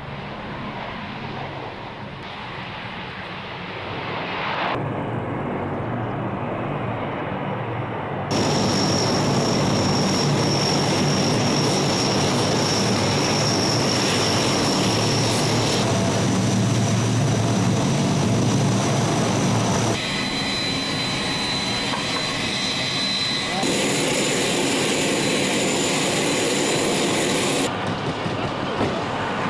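Lockheed C-130 Hercules's four Allison T56 turboprop engines running: a steady high whine over a deep propeller drone. The sound changes abruptly several times and is loudest through the middle stretch.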